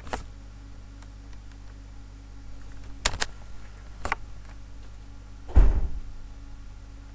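A few sharp clicks, two of them close together about three seconds in, then a heavier low thump about five and a half seconds in, over a steady low electrical hum.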